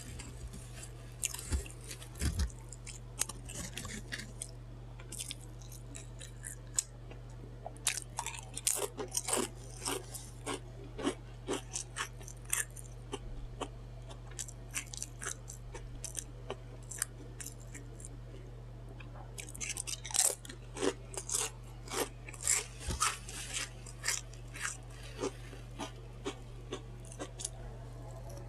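Close-miked chewing of a Subway chicken, bacon and vegetable sandwich: wet crunching and smacking in irregular clusters of crackly bites, busiest in two stretches with a sparser pause between.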